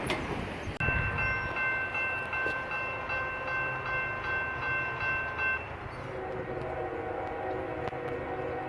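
Norfolk Southern freight train running by with a steady rumble, while a chord of several high tones sounds steadily from about a second in for about five seconds. A lower-pitched chord of tones comes in near the end.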